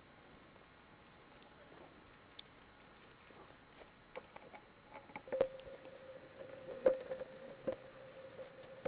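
Camcorder handling noise: soft clicks and a few knocks on the body, and from about halfway in the steady whine of the zoom motor as the lens zooms in.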